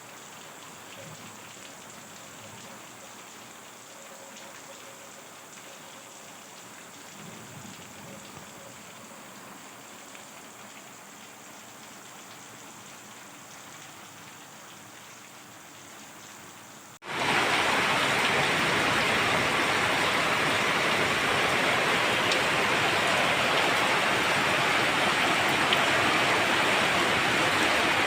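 Steady rain, light and faint at first. About two-thirds of the way through it switches abruptly to much louder, heavy rain.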